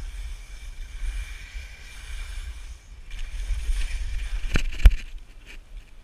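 Wind buffeting a body-mounted action camera's microphone during a downhill ski run, with skis hissing over the snow. Two sharp knocks come close together near the end, the second the loudest.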